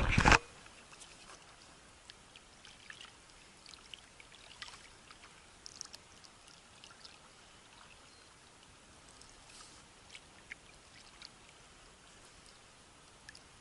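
A loud rush of noise that cuts off half a second in, then faint water sounds: small splashes, drips and scattered light ticks of wavelets and oars against a small rowing boat.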